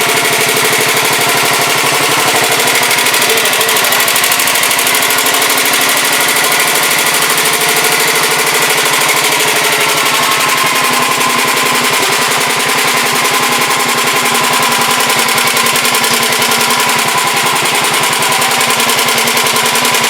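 Sears Suburban garden tractor's small engine running steadily up close, a fast, even firing beat with no change in speed.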